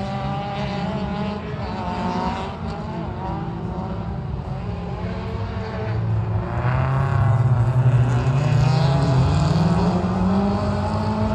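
S1400-class rallycross cars racing, several small petrol engines running hard with their notes rising and falling through gear changes. In the second half the sound grows louder and one engine note climbs steadily as a car accelerates hard.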